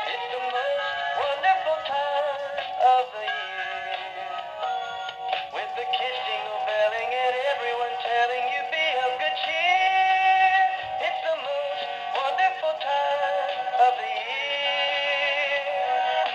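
Gemmy animated candy reindeer Christmas toy playing its song, a synthetic-sounding voice singing over music through the toy's small built-in speaker, thin with no bass. It is working again after a repair.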